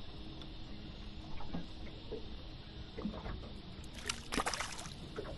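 Steady wind and water noise on a small fishing boat, with scattered faint clicks and a short noisy rattle about four seconds in.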